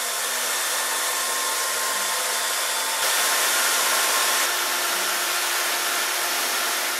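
Wet/dry vacuum cleaner running steadily, sucking standing water off a flooded floor; the noise gets a little louder about three seconds in.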